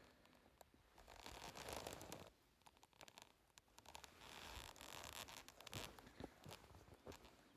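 Faint rustling and scraping close by, in two longer stretches with a few sharp clicks between them.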